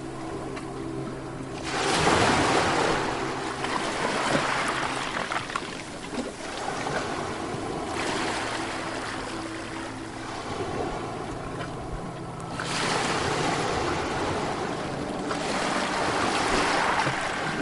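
Ocean surf: waves breaking and washing up the beach, a fresh wave surging in about two seconds in and another about twelve seconds in, each then slowly fading. Soft, steady low tones sound underneath.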